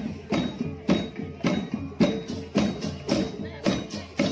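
A Balinese procession percussion ensemble of okokan wooden bells, kendang drums, kukul slit drums and cengceng cymbals playing a driving, steady beat of about two heavy strokes a second, with clattering and jingling between the strokes.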